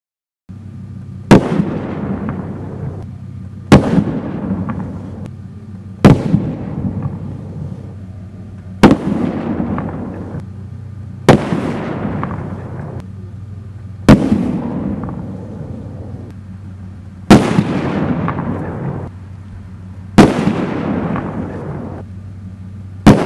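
Tracer mine flower pot pyrotechnic shells fired one after another: nine sharp bangs, about every two and a half to three seconds. Each bang is followed by a noisy hissing tail that dies away over a second or two.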